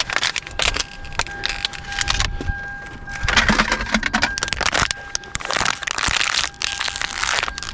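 Rummaging through a pile of debris: rustling and scraping with many small clicks and clinks, louder in two stretches from about three seconds in, over a faint steady whine.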